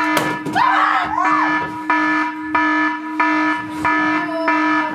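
Electronic alarm sound effect, a pulsing pattern of tones repeating about one and a half times a second over a steady low hum.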